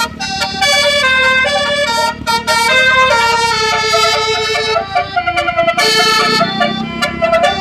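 Basuri bus horn, an Indonesian telolet-style multi-tone musical air horn, playing a melody of quick stepped notes, with short breaks around the middle.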